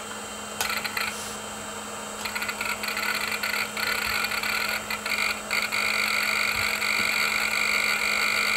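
Old Pentium II PC running, with a steady hum and whine underneath. Its Conner hard drive chatters with irregular seek clicks from about half a second in, busier after about two seconds, as Windows 95 loads and detects new hardware.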